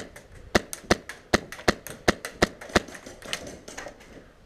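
Ares Amoeba AM-013 airsoft rifle with a PolarStar Jack high-pressure-air engine firing repeated single shots, about three a second, as sharp snapping cracks. The shots stop after about three seconds, with a couple of fainter clicks after.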